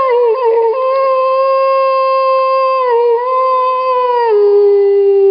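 A man howling like a wolf in one long, loud howl. The howl holds a steady pitch, wavers briefly about half a second in and again about three seconds in, then steps down lower about four seconds in.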